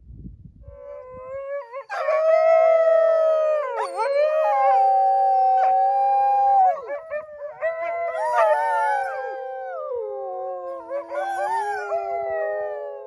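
A team of Canadian Inuit sled dogs, in harness beside the sled, howling together: several long, wavering howls overlap in a chorus. It starts faintly, swells about two seconds in, and cuts off abruptly at the end.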